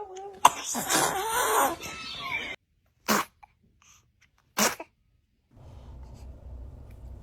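Babies sneezing, one clip after another: a noisy outburst lasting about two seconds, then two short, sharp single sneezes about a second and a half apart. Near the end there is a faint steady hum.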